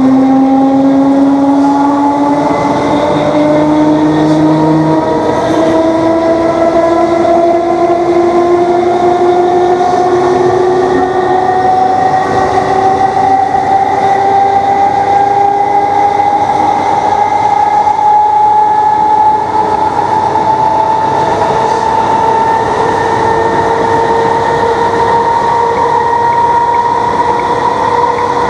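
Class 321 electric multiple unit's DC traction motors whining loudly under power, the whine climbing slowly and steadily in pitch as the train gathers speed.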